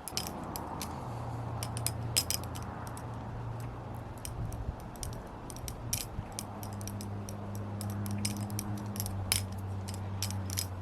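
Balisong (butterfly knife) being flipped and manipulated, its metal handles and latch clicking and clacking irregularly over a steady low hum.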